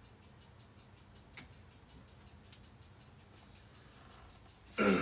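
Quiet room tone with faint regular ticking and a sharp click, then near the end a loud, brief scrape and bump as a large cardboard shipping box is handled.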